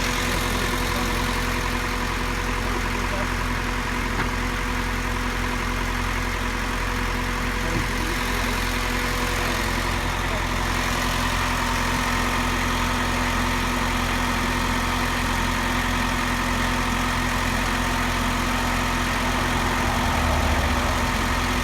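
A vehicle engine idling steadily, with a few fixed, even tones held over the low running sound.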